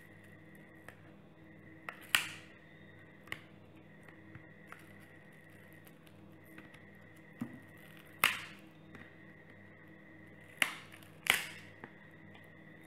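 Sharp snapping cracks as the glued-down battery of a Blu Studio 7.0 phone is pried loose from its metal frame, the adhesive letting go. There are four loud snaps, two of them close together near the end, each with a short crackle, and small ticks in between.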